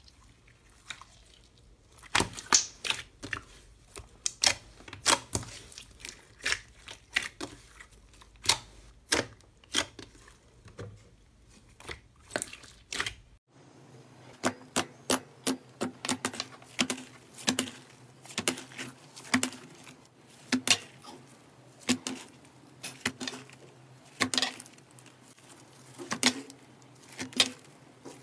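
Slime being pressed, squeezed and stretched by hand, giving an irregular run of sharp clicks and pops, a few each second, starting about two seconds in.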